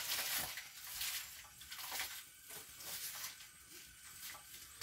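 Soft kitchen handling sounds: a spoon stirring in a steel pot of liquid okroshka, with scattered light clinks and sloshes.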